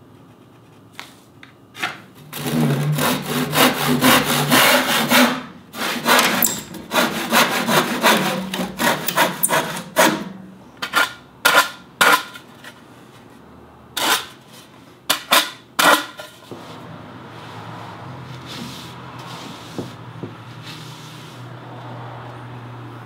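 A saw cutting through a wooden board in quick strokes, followed by a rasp scraped across the board's edge in separate strokes to round it off. A steady low hum takes over for the last several seconds.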